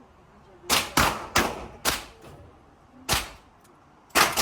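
Six revolver shots from a Ruger GP100 in an indoor range, each shot ringing briefly off the walls. Four shots come in quick succession in the first two seconds, then two more spaced about a second apart.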